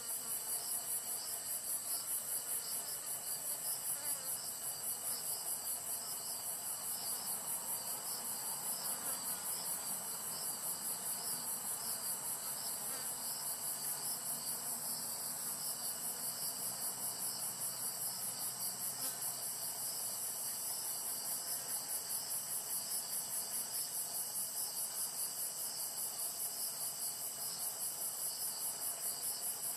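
Chorus of singing insects: a high, evenly pulsing trill, with a steady thin tone lower down.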